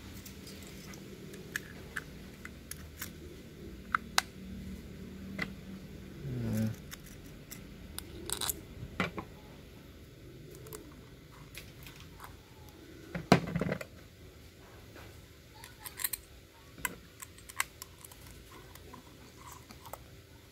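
Small metal carburetor parts being handled and fitted back together by hand: scattered light clicks, taps and clinks, with one louder knock about 13 seconds in.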